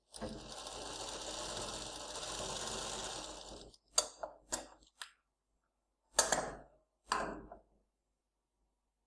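Industrial sewing machine running a steady stitch for about three and a half seconds, sewing a topstitch over a fabric neck piece, then stopping and starting again in several short bursts.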